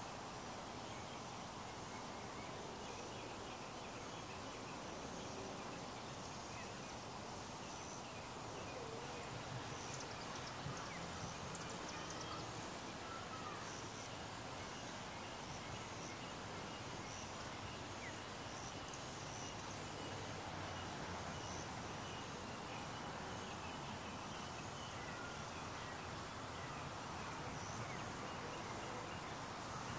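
Outdoor evening ambience: a steady, even background noise with faint bird chirps and insect calls scattered through it, including a soft high chirp repeating about once a second.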